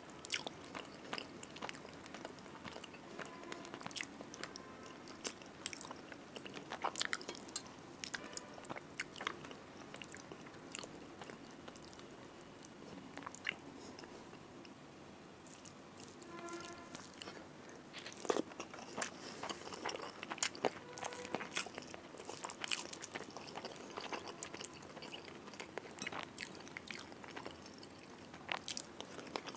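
Close-miked eating of rice and spicy fried fish and prawns by hand: steady chewing and crunching with many sharp, wet mouth clicks.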